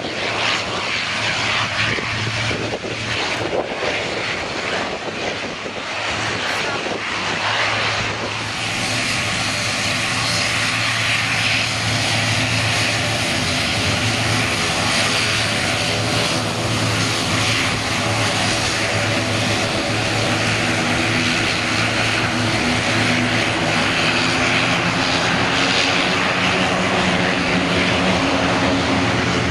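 CASA C-295's two Pratt & Whitney Canada PW127 turboprop engines and propellers running as the aircraft slows and taxis after landing. The sound is rough at first; from about eight seconds in it settles into a steady droning hum of several tones, growing slightly louder.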